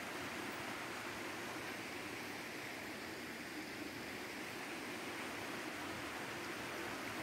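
Steady, even rush of water from a small rocky creek flowing downhill.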